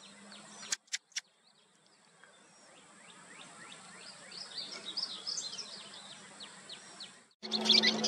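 Western kingbird calling: a run of short, sharp chirps that gathers into a squeaky chatter about halfway through. Three sharp clicks come about a second in. Near the end, a louder stretch begins with more chirps over a steady low hum.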